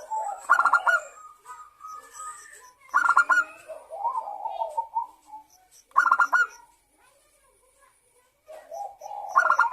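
Zebra dove (local perkutut) cooing: a quick run of staccato notes trailing into softer pulsed coos, repeated four times about every three seconds.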